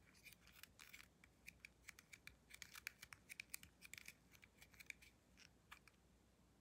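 Fingers and thumbs rubbing and pressing on the engraved stainless steel plates of a Ridge wallet: a quick run of faint dry scratches and clicks that thins out about five seconds in.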